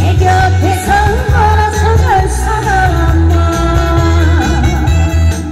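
A woman singing into a microphone, amplified over a musical accompaniment with a heavy, pulsing bass; her notes are held and slide between pitches.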